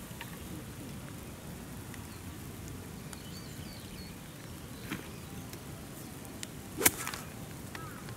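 A 52-degree wedge strikes a golf ball off the turf: one sharp crack about seven seconds in, by far the loudest sound, over a quiet outdoor background.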